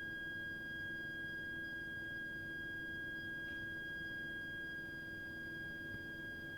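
Abnormal continuous high-pitched shriek from a heating system's heat interface unit (HIU) and pipework: one steady whistle-like tone with fainter overtones above it, holding unchanged, over a low hum.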